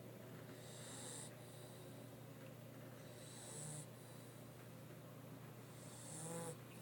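Mastiff snoring softly, three snoring breaths, each under a second, about every two and a half seconds.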